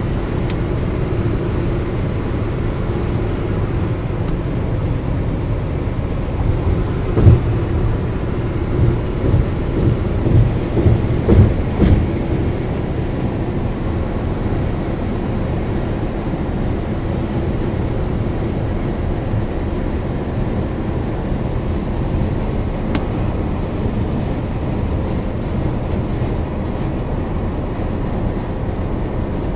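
Steady road and engine noise heard inside the cabin of a car driving on a highway. A run of louder low thumps comes between about 7 and 12 seconds in.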